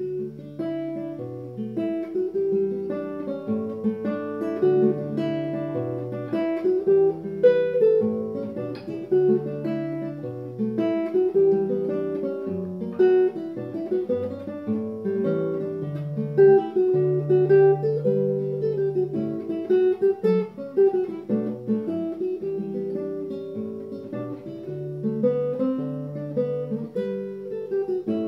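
Nylon-string classical guitar played solo, fingerpicked: a moving melody over held bass notes.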